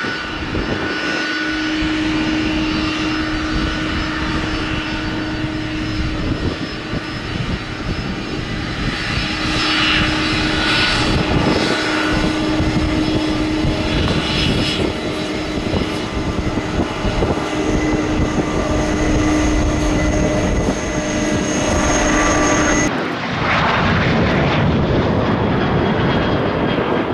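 Jet airliner engines running with a steady whine of several held tones over a rushing noise. Near the end the sound changes abruptly to a rougher, broader jet rush without the whine.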